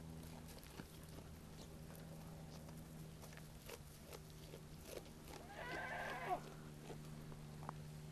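A goat bleats once, a wavering call about a second long, a little over halfway through. Underneath are a low steady hum and scattered light clicks.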